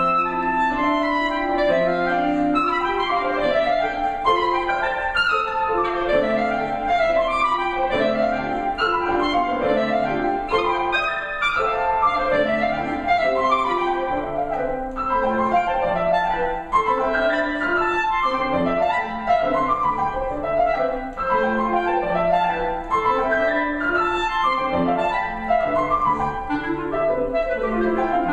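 Clarinet and piano duo playing a contemporary classical piece, busy overlapping melodic lines without pause.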